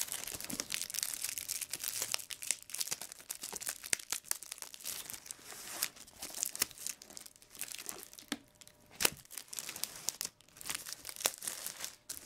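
Clear plastic shrink wrap crinkling and tearing as it is peeled by hand off a cardboard card-game box, in a continuous run of irregular crackles.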